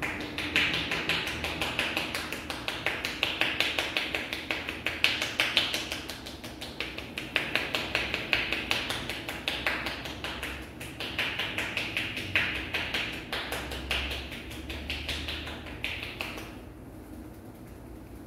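A barber's hands rapidly tapping on a customer's head in a percussive head massage: crisp taps several times a second, coming in runs with short lulls, stopping about sixteen seconds in.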